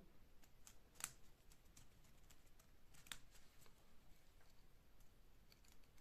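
Near silence broken by faint scattered clicks of a screwdriver working the screws of a plastic screw-terminal block. The clearest clicks come about a second in and about three seconds in.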